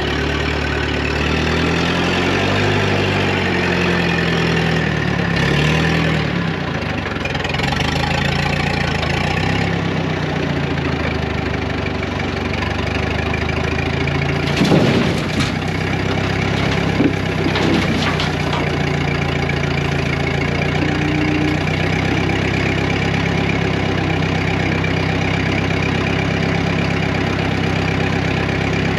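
Massey Ferguson MF300 track loader engine working while loading topsoil. The engine pitch rises and falls for the first ten seconds, then holds steady, with a few sharp clunks about midway.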